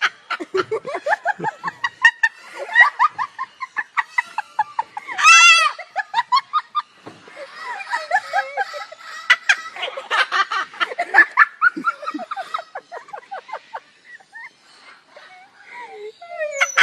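Parrots chattering and laughing, with rapid repeated laugh-like pulses and a few shrill calls.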